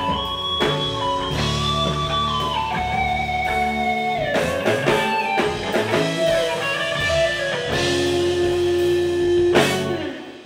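Instrumental music led by guitar over drums, with long held and sliding melody notes; it stops near the end.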